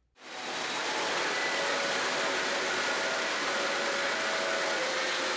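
Several O gauge model trains rolling along the layout's three-rail track: a steady, even rumble and rush of wheels on rail with faint tones above it, fading in just after the start.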